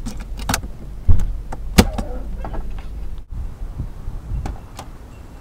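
A series of sharp clicks and knocks from a car's door and interior fittings, the loudest about two seconds in, over a low steady rumble. The sound drops out briefly about three seconds in.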